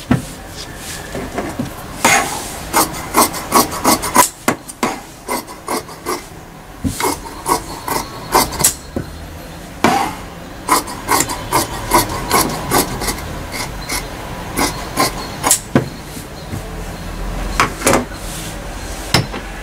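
Large steel tailor's shears cutting through tracksuit fabric on a cutting table: a run of sharp snips as the blades close, about two a second, with a short pause near the end.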